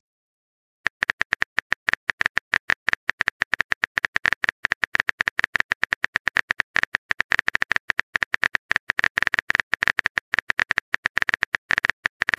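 Rapid key-click sound effects of a texting app's on-screen keyboard as a message is typed out, several short clicks a second, starting about a second in.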